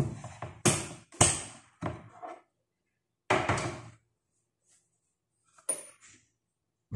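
Kitchen clatter: several sharp knocks and thuds of things being handled and put down on a counter, with a short louder noise about three seconds in.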